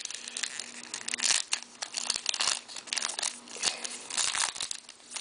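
Foil hockey-card pack wrappers crinkling and tearing as packs are opened by hand: irregular bursts of crackling, with the loudest just over a second in.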